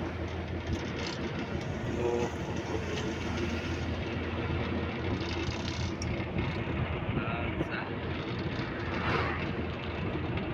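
Steady running noise inside a moving passenger vehicle: a constant low rumble with an even rush of travel noise over it.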